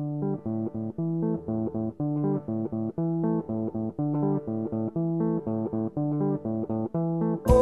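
Background music: a repeating plucked guitar and bass riff in a steady rhythm, with a louder full band coming in just before the end.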